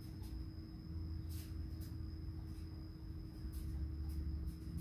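Quiet room tone: a faint steady electrical hum and a low rumble, with a few faint short clicks and rustles.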